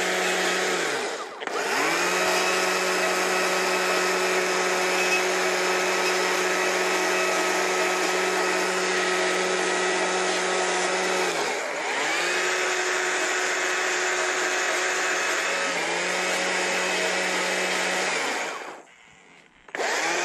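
Stihl battery chainsaw running at full speed with a steady whine, trimming a small mushroom carving. The trigger is let off and squeezed again several times: the motor winds down and spins straight back up about a second in, near the middle, and a few seconds before the end. It then stops for about a second near the end before starting again, with no idle in between.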